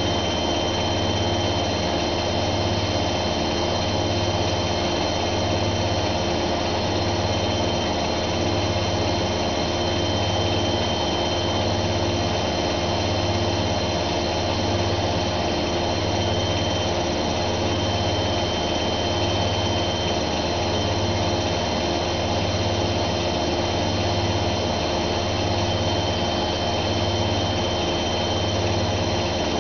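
Zanussi ZWF 1621 W washing machine drum spinning at high speed: a steady high-pitched motor whine over a low hum that swells and fades about every second and a quarter.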